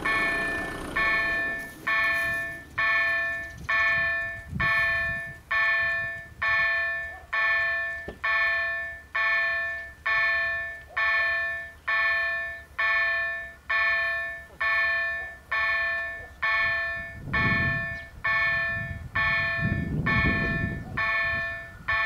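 Automatic level crossing warning bell of an SPA-2 crossing signalling system ringing steadily, about three strikes every two seconds, each strike dying away before the next.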